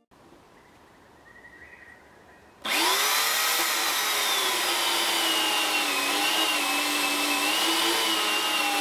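Small electric chainsaw on a chainsaw mill starting up nearly three seconds in, its motor spinning up with a short rise in pitch, then running steadily while ripping a blackwood log lengthwise, the pitch wavering slightly under the load of the cut.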